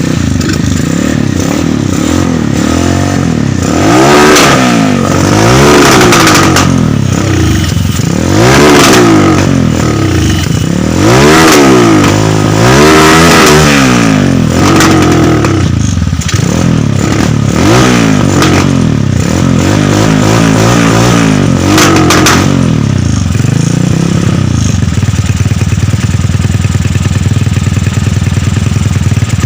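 Old trail motorcycle's Honda Tiger single-cylinder four-stroke engine revved up and down about six times, then settling to a steady idle about three quarters of the way through. The owner says this engine coughs and stutters at high revs and is hard to start.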